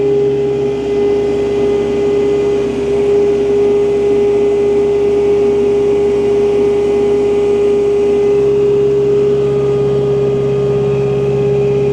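Kubota tractor's diesel engine running steadily at about 2,000 rpm under load while pulling a box scraper, with a lower drone that drops away about a second in and returns about eight seconds in.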